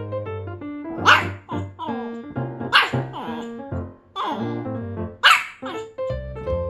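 A Pomeranian barking in a tantrum of boredom: three sharp, high barks about two seconds apart, each rising in pitch and followed by a smaller yip, over steady background music.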